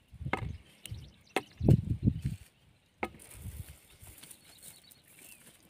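A cast net being handled and untangled by hand: irregular soft thumps and rustles as the mesh is pulled about, with a few sharp clicks from its lead sinker chain.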